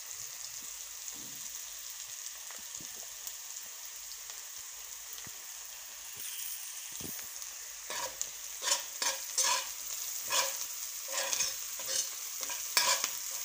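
Onions and spices frying in oil in a pan, a steady sizzle. From about eight seconds in, a spoon stirs the pan in quick, irregular scraping strokes.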